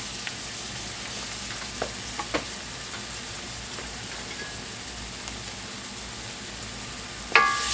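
Butter, onions, garlic and flour sizzling in a hot pan as the roux for a gravy, a steady frying hiss with a few faint taps of the stirring utensil. A sharp clink with a brief ring near the end.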